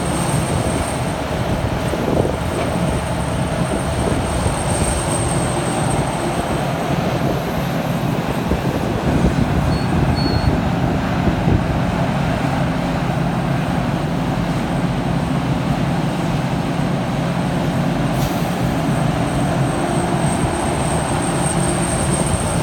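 Liebherr 974 hydraulic excavator's diesel engine running steadily under load as it digs and swings, with a thin high whine that fades in and out.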